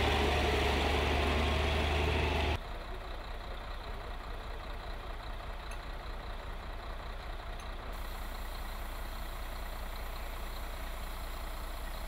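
Engine of a big-tyred wheeled logging machine running close by, with a strong low hum, for about the first two and a half seconds. It then cuts off abruptly to a much quieter steady background rumble.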